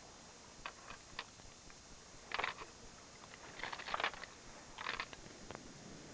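Fishing lures and hooks rattling and clicking in a plastic tackle box tray as a hand rummages through it: a string of short, irregular clatters, the loudest about two and a half and four seconds in.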